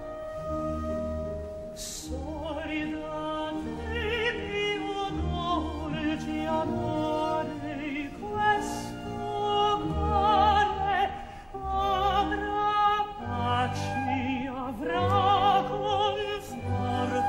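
Background classical music: an operatic singing voice with strong vibrato over an orchestral accompaniment, entering about two seconds in.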